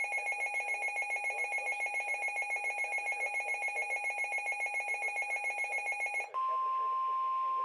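Emergency Alert System attention tones for a test tornado warning: a loud, rapidly pulsing multi-tone alarm, then about six seconds in a switch to a single steady pure tone, the weather-radio warning alert tone that comes before the voice message.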